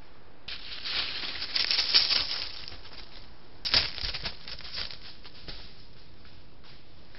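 Dry leaf litter rustling and crackling as a badger digs and shuffles through it, an irregular patter for about two seconds. A sharp click comes a little under four seconds in, followed by a shorter burst of crackling.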